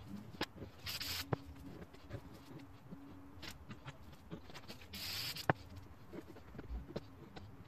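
Aerosol spray paint can hissing in two short bursts, about a second in and again about five seconds in, among light clicks, knocks and scratchy rustling of cans and materials being handled on the painting.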